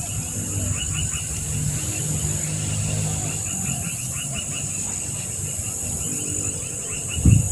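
Insects droning and chirping steadily around a swamp, a high continuous buzz with short repeated chirps over it, above a steady low hum. A louder low sound starts near the end.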